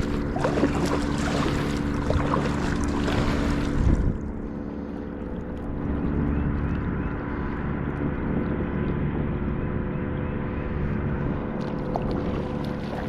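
Kayak moving through the water while trolling: water rushing and splashing along the hull for the first four seconds, then calmer, over a steady hum.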